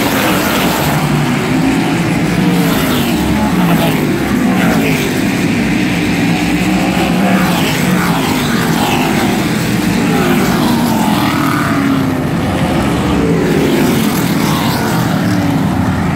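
Engines of a pack of modified race cars running at full speed past the front stretch. The pitch rises and falls again and again as car after car goes by.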